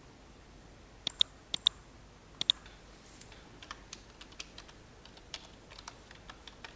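Computer keyboard being typed on as a password is entered. Three pairs of louder, sharp clicks come in the first two and a half seconds, then a run of lighter, irregular keystrokes.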